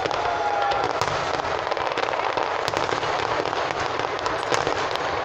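Fireworks going off in a continuous barrage of sharp pops and crackles, many bangs in quick succession with no pause.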